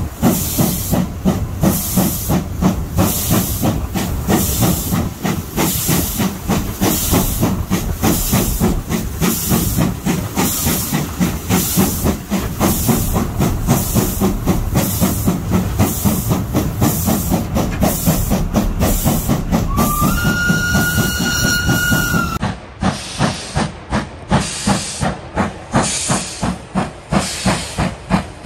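Steam locomotive SJ B 1323 pulling its train away from a station stop, its exhaust chuffing in an even beat about three times a second, heard from the cab. About twenty seconds in, the steam whistle sounds one steady note for a couple of seconds; near the end the chuffing is heard from beside the track, sharper and with gaps between beats.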